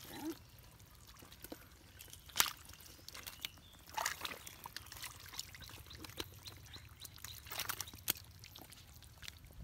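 Hands squelching and splashing in shallow muddy water, with a few short, sharp wet splats.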